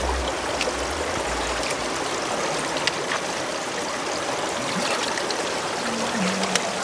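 Shallow stream water running steadily over rocks.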